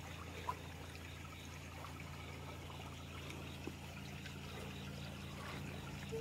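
Faint trickling of water in a shallow stream, with a few light knocks, over a low steady hum.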